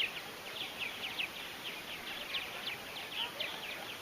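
A colony of purple martins calling together: a dense, continuous chatter of many short chirps overlapping one another.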